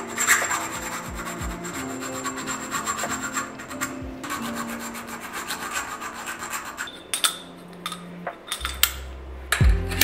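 Repeated hand rubbing and scraping on a part, over background music. A few sharp clicks follow near the end as a deep bass note comes in.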